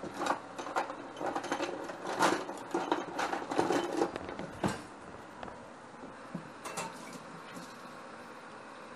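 Metal and plastic kitchen utensils clattering and rattling in a pulled-out drawer as a hand rummages through them for about five seconds, followed by a few lighter knocks.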